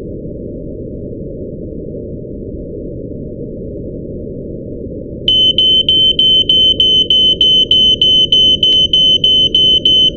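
Deep, steady rumble of an earthquake; about five seconds in, a smoke alarm starts sounding over it with a piercing, rapid beeping, about three beeps a second.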